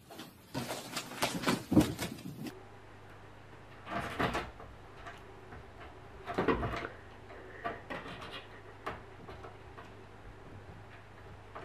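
Irregular knocks and bumps from a cat climbing on top of an open wooden door: a quick run of sharp knocks in the first couple of seconds, two heavier thumps about four and six and a half seconds in, then a few light clicks.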